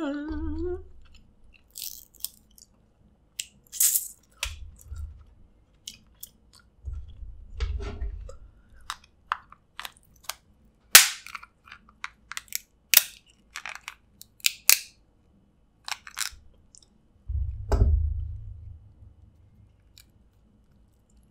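Snow crab leg shells cracking and snapping, broken with a metal crab cracker and by hand: a run of sharp, irregular cracks and clicks, the loudest about halfway through, with chewing and a few low thumps between.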